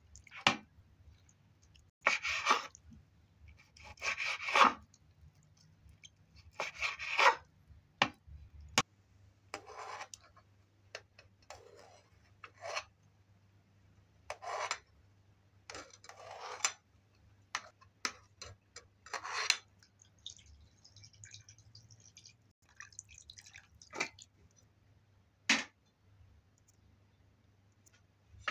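A knife slicing raw meat on a wooden cutting board: a few short rasping cuts, a couple of seconds apart. Then a metal spoon scraping and tapping in an aluminium pot as foam is skimmed off boiling meat, with a few sharp clicks near the end.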